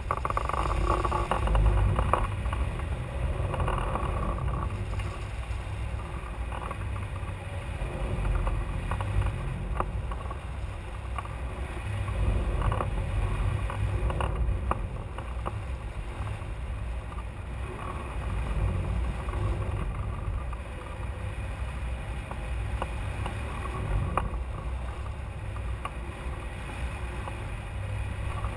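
Wind rushing over a microphone mounted on a hang glider in gliding flight: a steady low rumble that swells and eases every few seconds, with a few faint clicks.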